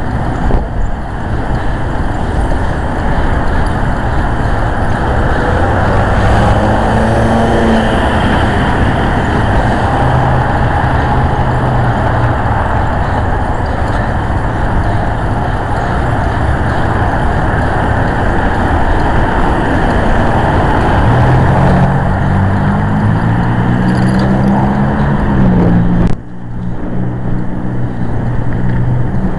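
A motor vehicle on the move: a steady, loud rush of road noise with the engine's pitch rising twice as it speeds up, the second time over the last third. The noise drops suddenly near the end.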